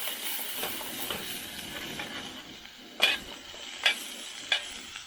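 Onions sizzling in smoking-hot oil in a pan, the hiss slowly dying down, then three sharp knocks of a metal spatula against the pan in the second half.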